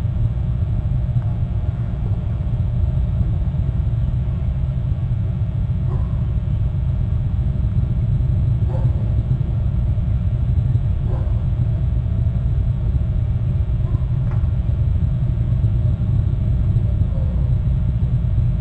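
Steady low rumble of wind buffeting an outdoor camera microphone, with four faint, brief higher sounds a few seconds apart.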